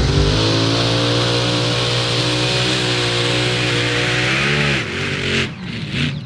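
Mini Modified pulling tractor's engine at full throttle on a pull, holding a steady, high-revving note with a strong hiss. About five seconds in, the pitch sags and the engine drops off sharply as the throttle comes off.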